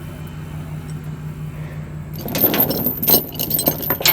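A steel chain rattling and clinking as it is handled, in a jangling run starting about halfway through, over an engine idling steadily.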